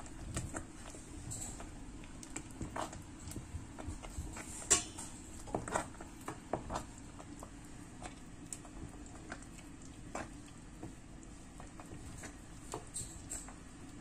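Wooden spoon stirring thick, creamy risotto in a stainless steel pot: irregular soft clicks and wet squelches, busiest and loudest around the middle, over a low steady hum.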